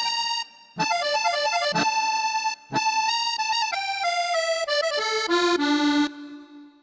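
Yamaha Tyros arranger keyboard playing a melodic phrase, broken by two short pauses, that ends in a falling run of notes. The run stops about six seconds in and rings off.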